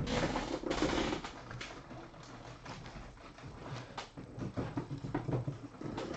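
Trading cards being handled on a table: sliding and rustling with small clicks and taps, loudest in the first second.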